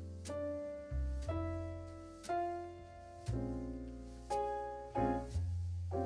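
Soft background piano music, a chord or melody note struck about once a second over a held bass note, each note fading before the next.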